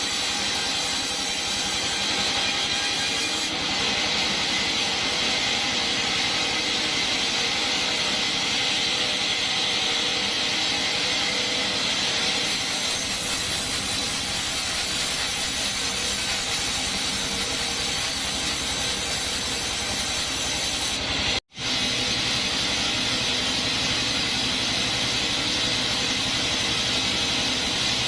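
Sawmill bandsaw running through coconut wood: a steady, continuous sawing noise with a strong hiss. It cuts out completely for a split second about two-thirds of the way through.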